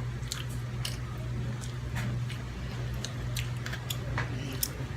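Children chewing pizza close to the microphone: an irregular scatter of short mouth smacks and clicks over a steady low hum.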